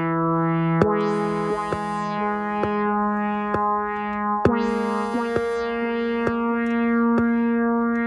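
Ambient beat built from sampled Minimoog Model D sounds. Sustained synthesizer chords change pitch twice, over a slow, steady beat of sharp percussive hits about one a second.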